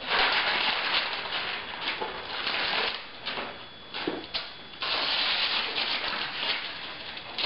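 Blue painter's tape being peeled off newspaper masking on a painting: a ripping noise in two long pulls with a short pause between them, broken by a couple of brief rips.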